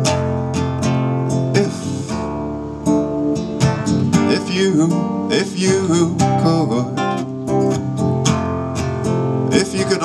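Solo acoustic guitar strummed steadily as live song accompaniment, chords ringing with regular strokes.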